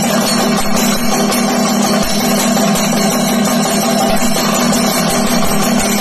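Chenda drums beaten with sticks in a thayambaka ensemble, a loud, dense, unbroken roll, with ilathalam hand cymbals playing along.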